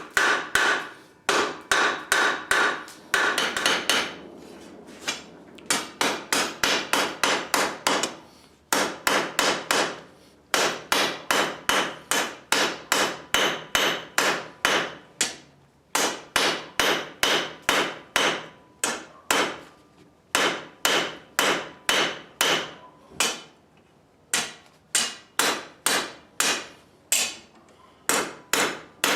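Blacksmith's hand hammer forging steel on an anvil in quick steady blows, about three a second, each blow ringing, with a few short pauses between runs.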